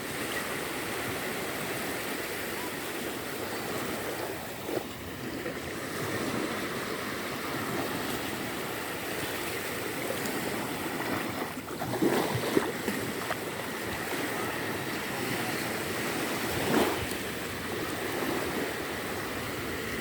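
Small waves from a calm sea washing onto a sandy shore: a steady hiss of surf, swelling louder twice, past the middle and near the end.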